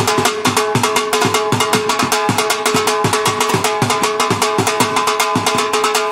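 Dhol-style barrel drum beaten in a fast, steady rhythm, several strokes a second, with a ringing tone from the drum heads under the strokes: the drum accompaniment to a Rajasthani kathputli puppet show.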